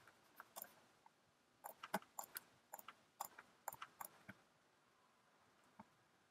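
Faint computer mouse clicks: a dozen or so short, irregular clicks, some in quick pairs, with a lull of about a second near the end.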